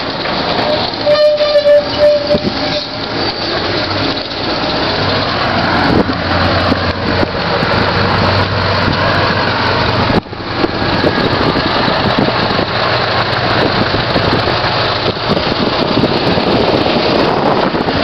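Scania 144L 530's 14-litre V8 diesel engine running, its sound heavily buffeted by wind on the microphone. A brief higher steady tone sounds about a second in, and the low engine hum grows stronger in the middle.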